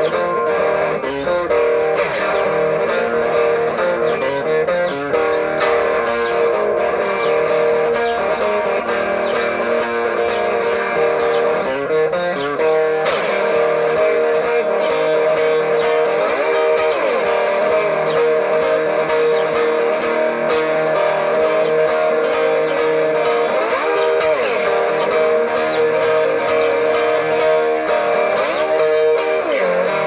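Electric guitar played with a pick, an instrumental country break of strummed chords and picked notes with no singing.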